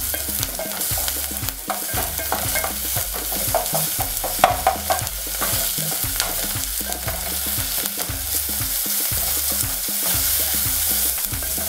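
Diced onions and garlic sizzling in hot oil in an aluminium pot, stirred with a wooden spoon that scrapes and taps irregularly against the pot.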